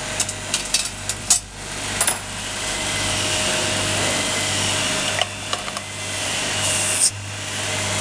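Vacuum pump running steadily, with sharp metallic clicks and clanks as the clamp and pump-out adapter are worked loose from the vacuum sleeve's pump-out port. A short high hiss cuts off suddenly about seven seconds in.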